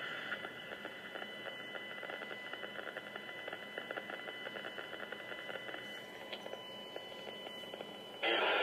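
Radio receiver's audio output: a faint hiss with steady high whistling tones and a fine, fast crackle. A much louder, rushing signal cuts back in abruptly near the end.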